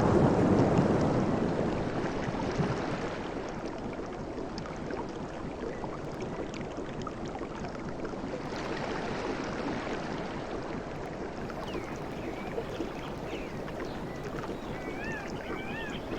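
Sea waves breaking and washing on a shore: one wave surges loudest in the first couple of seconds and fades out, and another washes in about halfway. Near the end a bird calls repeatedly in short wavering notes.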